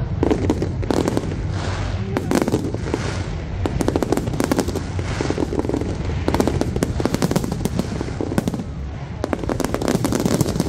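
Fireworks display: a dense, unbroken barrage of bangs and crackling, many reports a second, from shell bursts and ground-level crackling effects.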